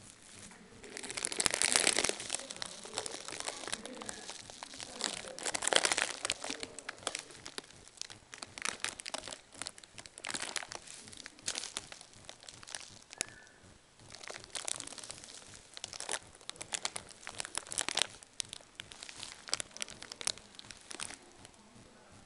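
Plastic wrap and sheeting crinkling in irregular bursts as it is handled, loudest about two seconds in and again about six seconds in.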